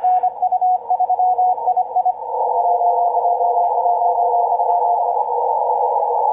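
Morse code (CW) from the Kenwood TS-890 receiver on the 15 m band. A keyed tone beeps in dots and dashes for about two seconds, then a fainter signal at slightly lower pitch keys for a few seconds more. Both sit in the hiss of band noise, narrowed by the radio's 500 Hz CW filter.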